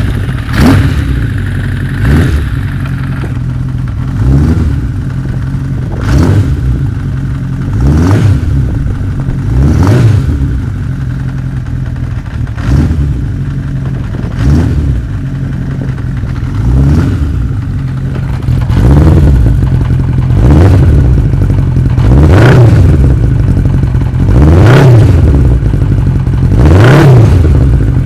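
Honda CB900F Bol d'Or's air-cooled inline-four through a modified Sitos exhaust silencer repacked with stainless steel wool, running at idle and blipped about every two seconds, the revs rising and falling back each time. The later blips are longer and louder.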